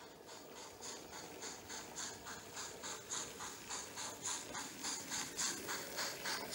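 Model steam locomotive (Trix class B VI) chuffing in an even rhythm, about three chuffs a second, growing louder as the train approaches.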